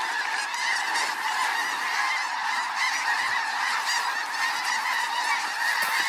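A huge flock of snow geese calling as it circles low overhead, thousands of honking calls blending into one dense, steady din.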